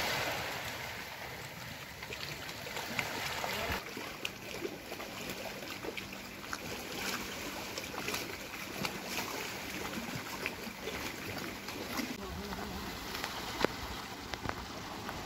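Small waves washing on the shore and wind, with scattered knocks and clatters from work on the beach and one sharp knock near the end.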